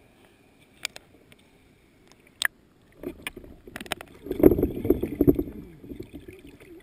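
Swimming-pool water sloshing and splashing around a camera dipped at and below the surface, loudest about four to five and a half seconds in. Before that it is quiet apart from a couple of sharp clicks.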